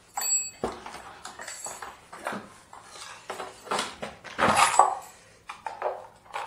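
Metal hand tools and fittings clinking and knocking irregularly as they are rummaged through by hand in an open tool case, with a brief metallic ring at the start and the loudest clatter about four and a half seconds in.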